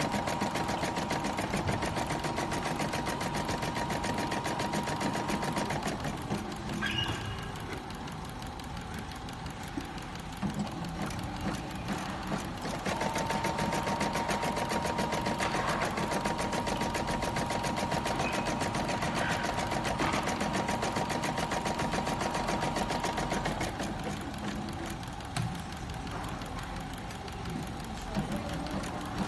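DT9090 embroidery and sewing machine stitching at a fast, even rate, with a steady whine while it runs at full speed. Twice it drops to a quieter patter with a few sharp clicks: once for several seconds after the first quarter, and again near the end.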